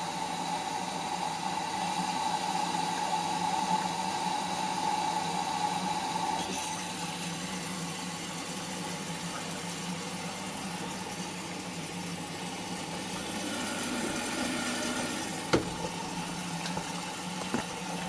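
Whirlpool front-loading washing machine running an empty diagnostic test cycle: a steady hum with water running and sloshing in the drum. The sound changes about six seconds in, and two sharp clicks come near the end.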